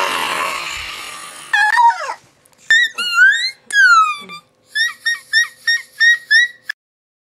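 A loud scream that fades over about a second and a half. Then several very high-pitched squeals glide downward, and a run of seven short squeaks about three a second cuts off suddenly near the end.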